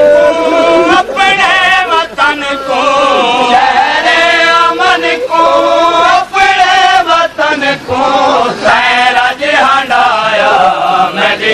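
A male reciter chanting a Punjabi noha, a Shia mourning lament, in drawn-out, wavering melodic phrases.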